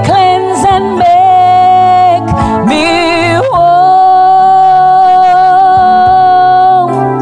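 A voice singing a slow gospel hymn over keyboard accompaniment. It moves through a few short phrases, then holds one long note for about three seconds.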